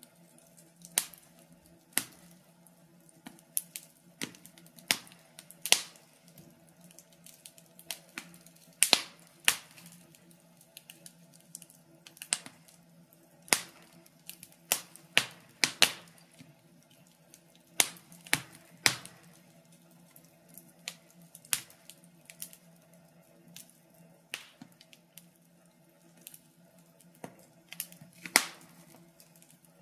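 Wood fire crackling in a fireplace: irregular sharp pops and snaps, about one a second and bunched in places, over a faint steady hum.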